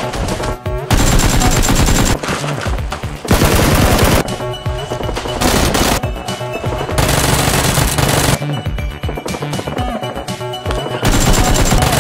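Rapid automatic gunfire sound effects from a first-person shooter game, coming in several long bursts with short breaks, over background music.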